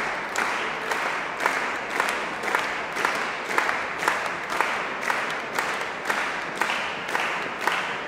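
Audience clapping together in a steady rhythm, about two claps a second.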